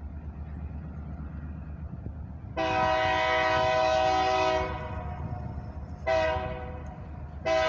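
Freight locomotive air horn blowing at a grade crossing: one long blast, then a short one, then another starting near the end. Beneath the horn, a steady low rumble of the approaching train and wind on the microphone.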